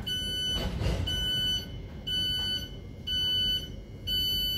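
Train door warning beeps as the doors open at a station: a steady electronic beep about half a second long, repeated once a second, five times. A short rush of noise comes about a second in.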